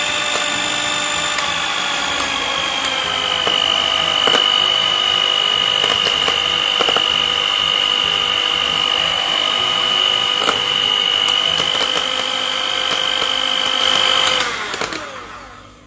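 Cosmos CM1279 electric hand mixer running, its beaters whipping an ice cream mixture, with a steady high motor whine. The pitch drops a little about two seconds in, then holds steady until the mixer is switched off and winds down about a second before the end.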